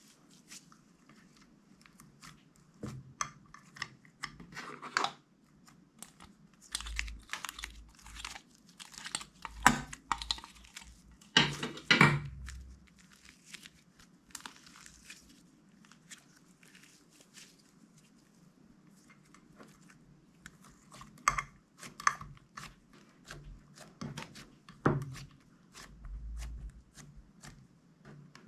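Clear slime being mixed and squeezed by hand: sticky pops and crackles in irregular clusters, busiest for several seconds in the middle and again toward the end, with a quieter stretch between.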